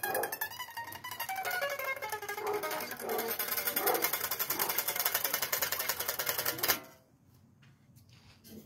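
Electric guitar played with rapid picking, the notes moving about, stopping abruptly about seven seconds in.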